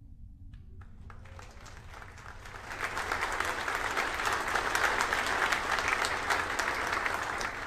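Applause from a room of people, building about a second in, strongest through the middle and fading near the end, greeting the Electron second stage's battery jettison during the hot swap.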